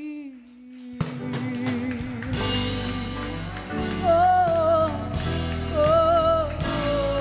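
Live gospel worship song: a woman's voice holds a long sung note, then about a second in the band comes in and the singing carries on over it.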